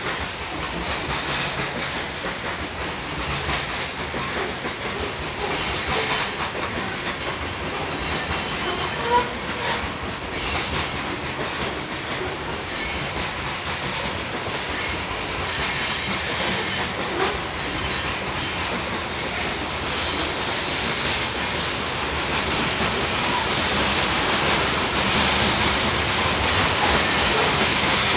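Freight train cars rolling past, wheels clattering steadily over the rail joints with some wheel squeal. A sharp clank about nine seconds in, and the clatter grows a little louder near the end.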